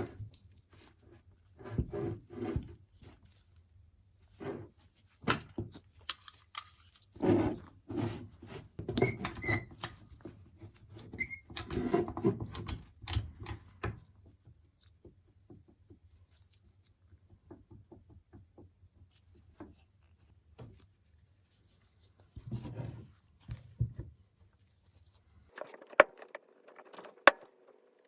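Irregular knocking and clattering of loose metal parts, most likely the worn windshield wiper linkage of a Toyota Land Cruiser 100, heard over a faint low hum. Near the end the hum stops and a steady mid-pitched tone with a few sharp clicks takes over.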